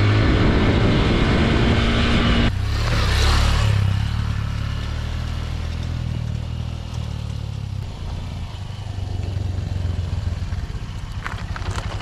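Honda CRF150L's single-cylinder four-stroke engine running as the dirt bike is ridden along a dirt trail. It is loud and close for the first couple of seconds, then quieter and pulsing at low speed as the bike rides up toward the camera.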